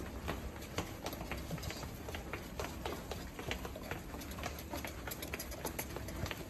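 Quick, irregular footsteps on a hard floor, a few light slaps a second from a toddler's sandals.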